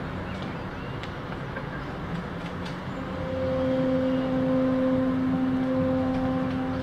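A ship's horn sounds one long steady blast starting about three seconds in, over a steady background rumble.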